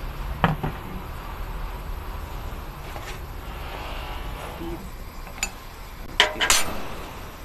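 Metal tools and parts clinking and knocking on a steel workbench: a few separate clicks, then a quick cluster of louder clinks about six seconds in. A steady low rumble runs underneath.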